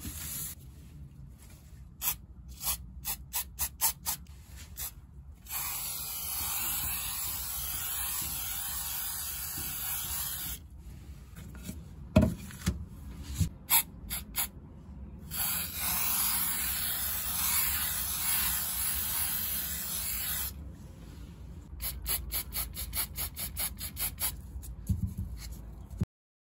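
Aerosol waterproofing spray can hissing: two long sprays of about five seconds each, with runs of short, quick bursts before, between and after them.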